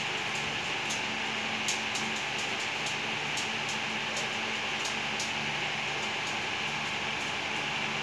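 Steady room noise: a low machine-like hum under an even hiss, with scattered faint clicks.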